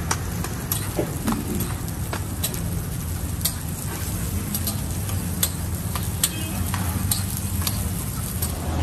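Parottas sizzling on a large flat iron griddle, with the sharp clicks and scrapes of a metal spatula as they are turned, over a steady low hum.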